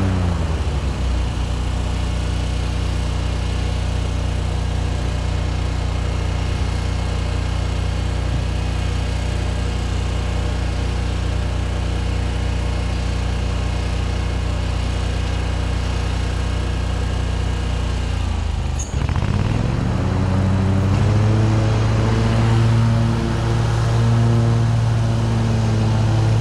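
Riding lawn mower engine running: it slows to a steady low speed at the start and holds there, then about 19 seconds in it dips briefly and is throttled back up to a higher, louder speed.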